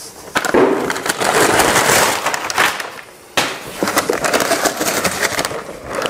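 Cardboard box and packing material rustling and crackling while a vacuum cleaner is unpacked by hand. There are two loud stretches, the second starting suddenly after a short lull about three seconds in.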